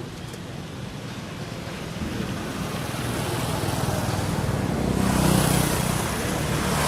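A motor vehicle going past on the road, its engine and tyre noise growing louder to a peak about five seconds in, then easing off.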